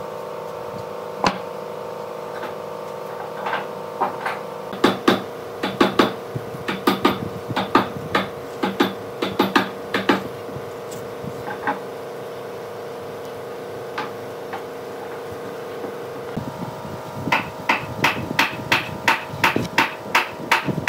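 Irregular sharp taps and knocks, clustered into two runs of several a second, over a steady droning hum whose pitch shifts about sixteen seconds in.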